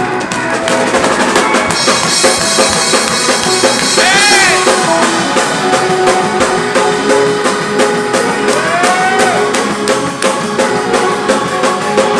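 Live up-tempo church praise music: a drum kit played fast with snare and bass drum, under held instrumental chords.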